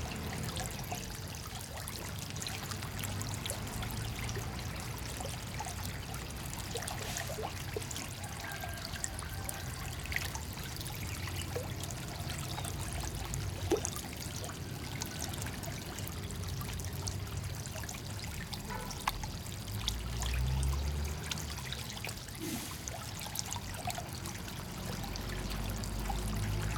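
Steady trickling and splashing of pond water churned by a dense mass of small frogs, with scattered small plops and clicks, one sharper about halfway through. A brief low rumble comes about three quarters of the way in.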